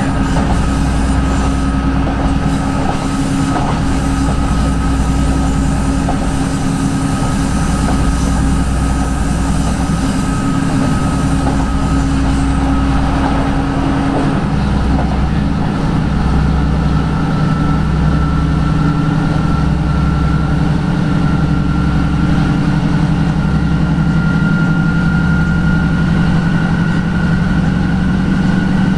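Class 156 diesel multiple unit under way, heard from inside the carriage: the steady drone of its diesel engine and drive over the running rumble of the wheels on the rails. About halfway through the engine note changes to a new, lower one. A higher tone then slowly rises in pitch as the train picks up speed.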